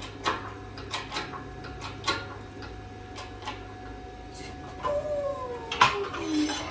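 Clicks and metallic knocks as a 1/8-inch steel mount plate is worked and bent further on a homemade press brake, irregularly spaced. Near the end comes a louder stretch with a whining tone that falls in pitch.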